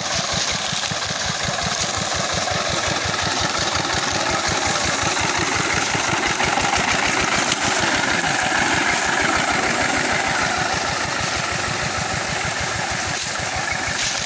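Engine of a homemade circular-saw sawmill running steadily with an even low pulse.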